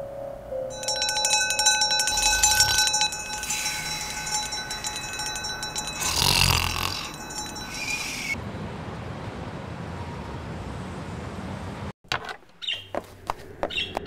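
A mechanical bell ringing rapidly and steadily for about seven seconds, then cutting off abruptly. A few light clicks follow near the end.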